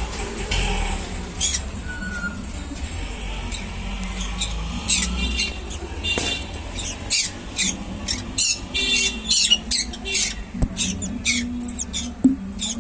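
African grey parrot making a rapid string of short, high squeaks, whistles and clicks, growing denser about halfway through.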